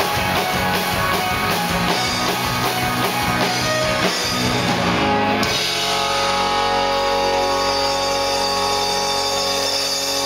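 Live rock band with electric guitars, fiddle and drum kit playing loudly. About five seconds in, the drumming stops and the band holds one ringing chord.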